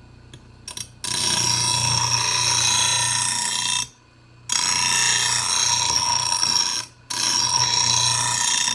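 Grinder wheel grinding the steel edge of a lawn mower blade in three passes of a few seconds each, with short breaks between, taking off the chunks and bumps along the edge.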